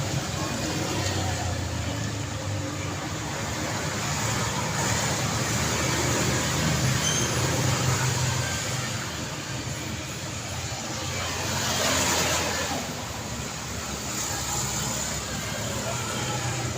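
Steady street traffic with cars and motorcycles going by. One vehicle passes close and louder about three quarters of the way through.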